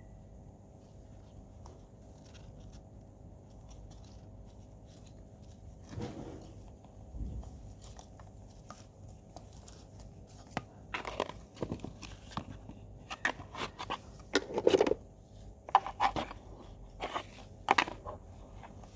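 Irregular crunches and knocks of soil and potatoes being dug and handled, coming in about halfway through after a quiet stretch and growing louder toward the end.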